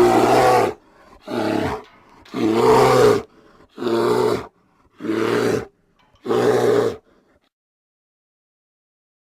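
Kodiak bear roaring: six short, loud roars in quick succession, each under a second long.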